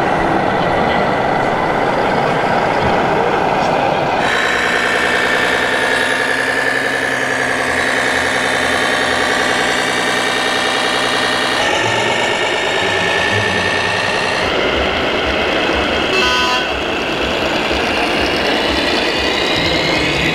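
Scale RC model trucks' simulated diesel engine sounds, changing abruptly from one clip to the next. A steady, even-pitched engine drone stands out in the middle of the stretch.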